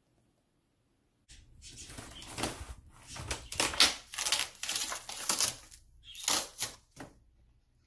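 German Shepherd chewing and tearing a corrugated cardboard cat scratcher: a run of irregular crunching, ripping crackles that starts a little over a second in and stops shortly before the end.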